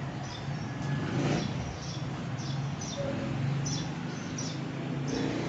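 Quiet background with no speech: a steady low hum under a faint hiss, with scattered faint, brief high chirps.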